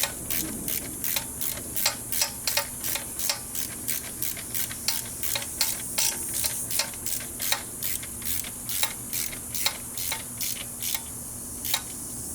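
Hand ratchet clicking in an even run, about three clicks a second, as it snugs up the nuts holding a turbocharger in place; the clicking stops near the end.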